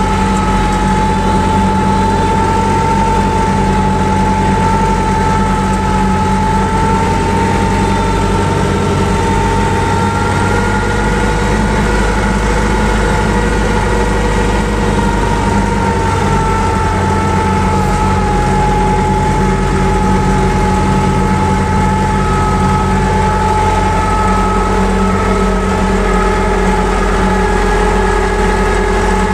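T-40 tractor's air-cooled diesel engine running steadily under load while pulling a harrow, heard from inside the cab, with a steady high whine over the low rumble.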